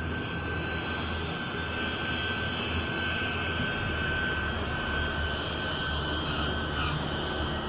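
Airliner engines running steadily: a constant rush with a thin high whine that neither rises nor falls.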